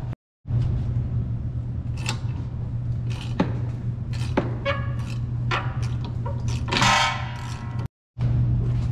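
Workshop sounds of hand work on car suspension: scattered sharp metal clinks and knocks over a steady low hum, with a brief harsher rattling burst about seven seconds in.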